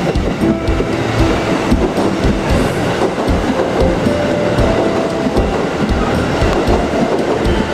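KiHa 85 diesel limited express train running along the track, its wheels knocking in a quick, uneven clickety-clack over the rail joints under a steady rumble.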